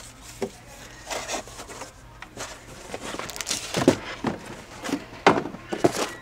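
Scattered knocks, taps and rustles of things being handled, loudest about four, five and six seconds in.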